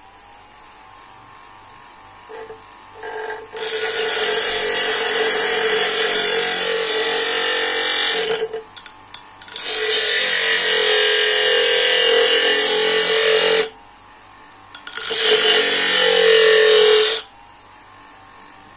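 Bench grinder running with a steady motor hum, and the end of a wooden handle pressed against its stone wheel: three long, loud grinding passes with short breaks of plain motor hum between them.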